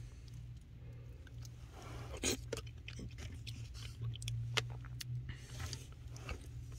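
A person chewing a mouthful of baked beans, with scattered soft mouth clicks and smacks, over a low steady hum.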